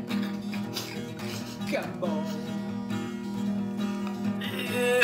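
Music: strummed acoustic guitar.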